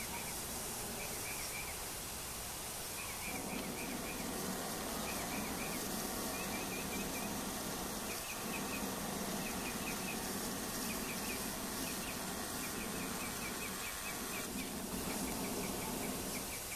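Small birds chirping in repeated quick trills over a steady outdoor hiss. A low drone comes in about three seconds in and runs on with brief dips.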